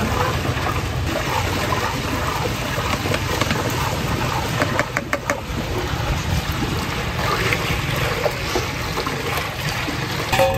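Crushed ice and milky soda churning and sloshing in a large steel pot as a long metal ladle stirs it. A few sharp clicks come about halfway through.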